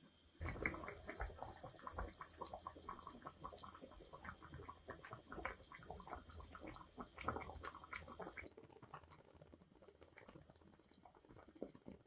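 Tomato sauce bubbling in a small enamel saucepan as it comes to the boil around seared hamburger steaks: a dense run of soft pops and blips that starts abruptly and thins out near the end.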